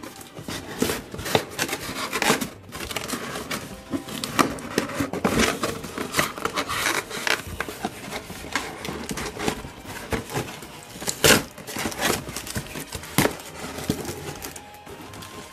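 Cardboard box and its inserts being handled: irregular rustling, scraping and sharp knocks and clicks of cardboard, with some crinkling of plastic packaging bags.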